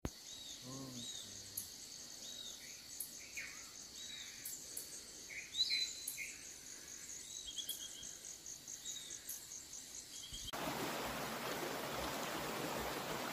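Tropical forest ambience: insects keep up a steady high drone while birds give repeated short calls. About ten and a half seconds in, it cuts abruptly to the steady rush of a stream.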